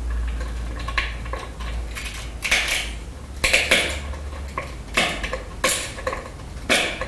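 Pressure flaking a glass arrowhead against a small wooden anvil: a hand-held pressure tool bites the glass edge with short scrapes and clicks as small flakes come away, about seven strokes at irregular intervals.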